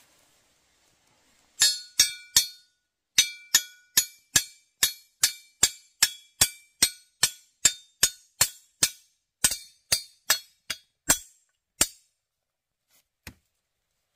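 Some two dozen sharp, evenly spaced strikes with a brief ringing note, a little over two a second, starting about a second and a half in and stopping about two seconds before the end.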